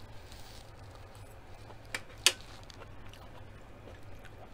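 A fork set down on a metal serving tray: two sharp clicks about two seconds in, the second louder, over a faint low hum.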